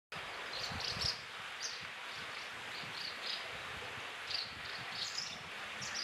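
Asian house martin fledglings chirping: short, high calls, singly and in quick pairs, scattered through, over a steady background hiss.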